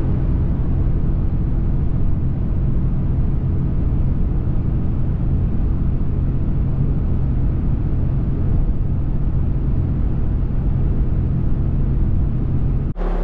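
Steady road and engine drone heard inside a vehicle's cabin at highway speed, while it tows a loaded trailer.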